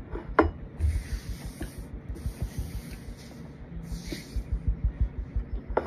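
Hands rubbing together to brush off powdery cornstarch, in several short spells of dry rubbing noise, over soft, regular chewing close to the microphone.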